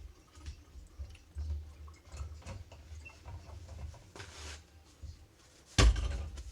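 Quiet clicks and rubbing from hands being washed at a sink with the tap off, then a sudden loud thump near the end.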